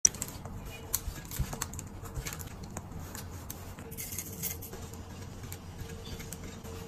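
Light, scattered clicks and taps of cake-decorating tools being handled: a spoon and piping bag working on a cake, over a faint steady hum.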